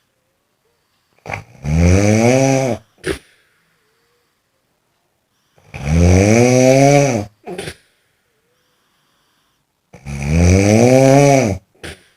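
Snoring: three long, loud snores about four seconds apart, each rising and then falling in pitch, each followed by a short, sharp catch of breath.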